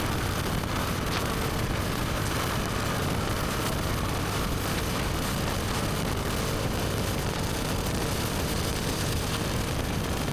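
BMW R1250GS Adventure's boxer-twin engine with an Akrapovic slip-on exhaust running steadily on the move, under a steady rush of wind noise.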